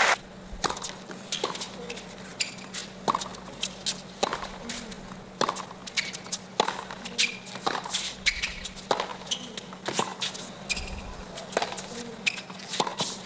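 Tennis ball struck by rackets and bouncing on a hard court: sharp pops about once a second over a quiet stadium background.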